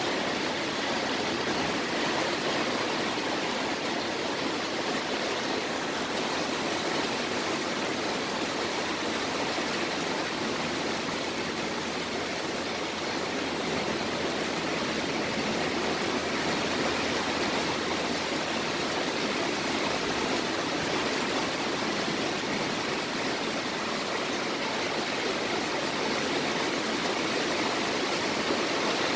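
Heavy thunderstorm rain pouring down steadily, an even unbroken hiss.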